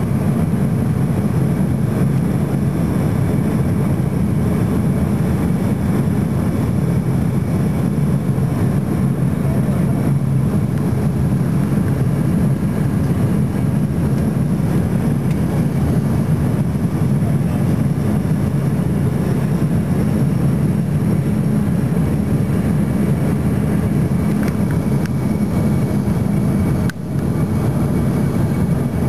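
Cabin noise aboard an Embraer ERJ-145 on final approach: a steady, loud rush of airflow and the rear-mounted turbofan engines, with a thin steady high whine over it. The sound drops out for a moment near the end.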